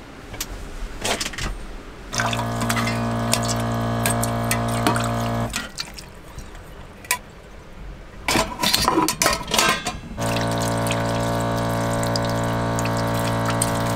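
A small electric water pump hums steadily while water runs from a tap into a sink, twice for about three to four seconds each. Clicks and splashing come in between.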